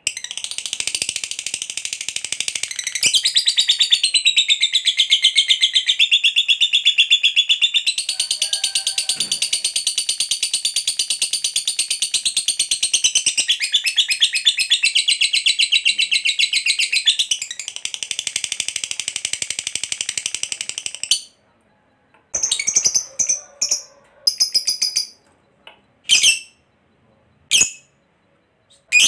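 A Fischer's lovebird gives a long ngekek: a loud, very rapid, high chattering trill held without a break for about twenty seconds. It then stops, and a few short separate chirps follow.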